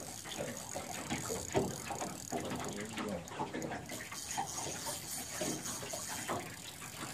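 Water lapping and splashing against a boat hull, with the ticking of a spinning reel being cranked against a hooked sturgeon.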